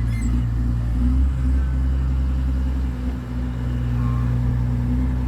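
Diesel engine of a heavy earthmoving machine running steadily, a low even hum with no sharp changes in speed.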